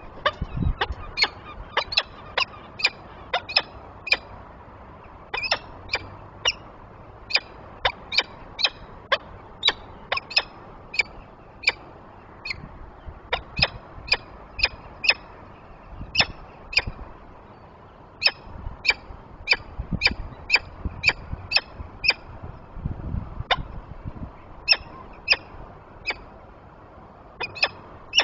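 Peregrine falcon calling: a long series of short, sharp, harsh calls, about two a second, in bursts separated by brief pauses.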